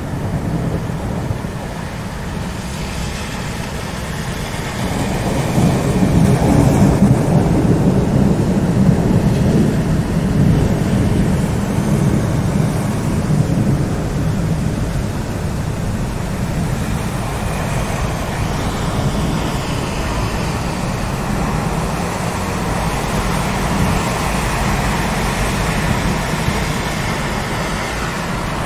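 Steady rain with a long, low rumble of thunder that builds about five seconds in and slowly dies away.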